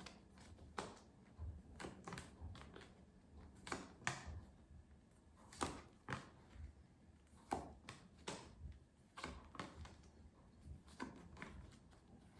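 Faint, irregular taps and rustles, roughly one a second, of a pack of flash cards being flipped through one card at a time.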